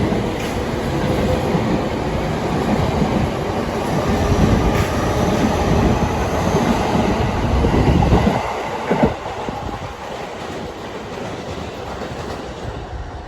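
JR 209 series 1000-subseries electric train pulling out and running past, its wheels clicking over the rail joints over a heavy rumble. The rumble falls away sharply about eight and a half seconds in, leaving a quieter fading noise.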